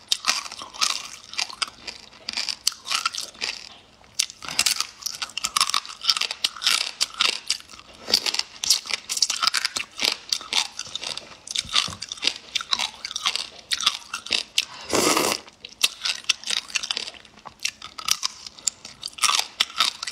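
A person chewing crunchy food close to the microphone: a quick, uneven run of crisp crunches, with one longer, louder mouth sound about 15 seconds in.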